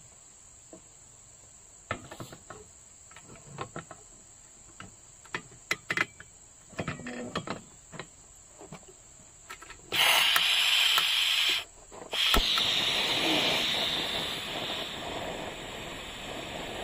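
Glass kettle knocking as it is set onto a portable gas-canister camping stove. The stove's gas then comes on with a sudden loud hiss, breaks off briefly, and resumes after a sharp click as the burner lights, easing off gradually. A steady high insect chirring runs underneath.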